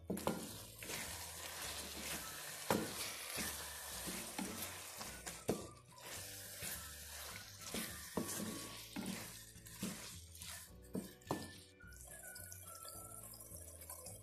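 Vegetables and ground spices frying in oil in a karahi, sizzling as a wooden spatula stirs them, with frequent scrapes and knocks of the spatula against the pan. The stirring and sizzle die down about twelve seconds in. Background music plays throughout.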